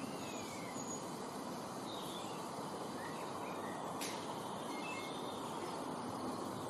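Steady outdoor background noise with a few faint bird chirps and short whistles scattered through it, and a single sharp click about four seconds in.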